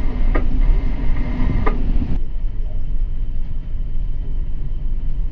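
Steady low rumble aboard a ship at sea, with a few sharp clicks in the first two seconds; about two seconds in the sound changes abruptly, the higher sounds dropping away and the rumble going on.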